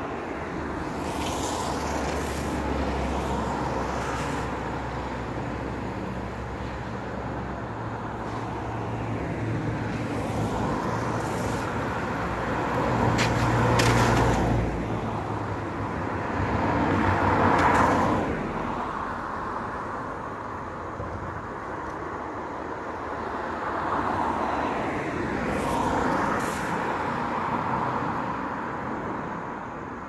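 Cars passing on a wet road, their tyres hissing on the wet asphalt. The hiss swells and fades with each car, loudest about halfway through and again in the last few seconds. A low steady engine hum runs under the first half and stops about halfway.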